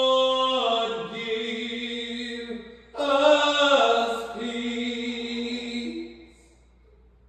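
A voice holding long wordless notes, sliding down in pitch about a second in, breaking off briefly near three seconds, then holding further notes that fade out about six seconds in.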